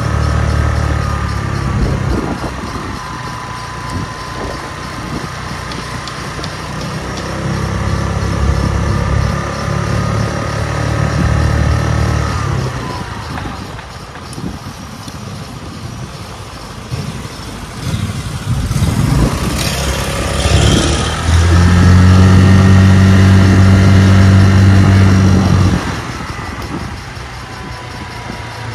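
A 150cc Chinese motor scooter's engine running under way, its pitch falling and rising as it slows and speeds up. Heavy low rumble comes and goes in stretches and is loudest a little past the middle.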